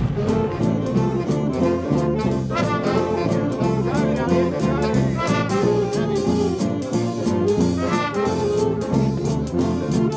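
A senior high-school jazz band playing: saxophones and brass over a bass line that steps from note to note, with drums.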